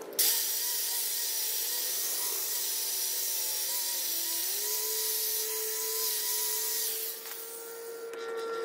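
A power tool cutting through the metal headlight bar: a steady harsh cutting noise with a wavering motor whine. It eases off about seven seconds in and starts again near the end.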